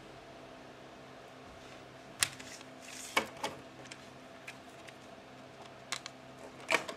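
Sharp plastic clicks and clacks as a portable CD boombox's lid is opened and a clear plastic CD jewel case is picked up and handled: a few separate clicks, the loudest about two seconds in, over a faint steady hum.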